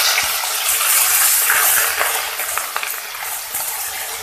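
Wet onion paste sizzling hard in hot oil with whole cumin seeds in a kadai, just after going in, with a wooden spatula stirring and scraping now and then. The sizzle slowly dies down.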